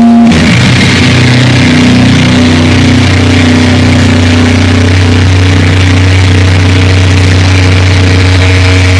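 Loud, heavily distorted electric guitar and bass from a live rock band, through a phone's microphone: a sustained feedback tone breaks about a third of a second in into a thick, low chord held steadily as a drone.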